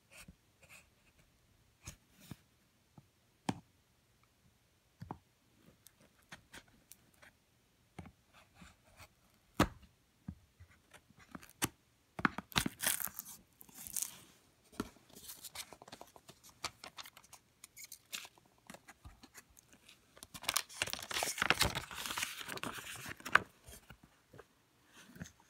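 Paper being cut and torn as a cigar box is opened: a knife slits the paper warranty seal, with scattered taps and clicks from handling the box. A few seconds of louder paper tearing and rustling come near the end.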